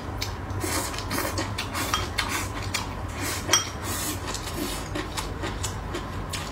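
Wooden chopsticks clicking and scraping against a ceramic rice bowl and plate as rice is scooped and eaten: a scatter of short clicks, with one louder knock about three and a half seconds in, over a steady low hum.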